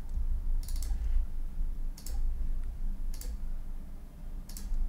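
Computer mouse clicking four times, about a second apart, over a steady low hum.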